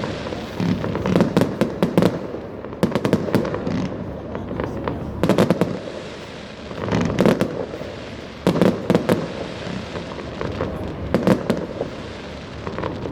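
Fireworks going off in repeated bursts of bangs and crackling, a new cluster every one to two seconds.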